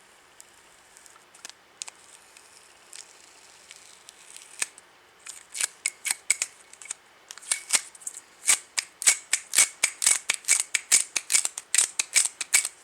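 Scissors snipping, cutting open packaging: a quick run of sharp snips, a few at first, then a steady series of about four a second from about five seconds in.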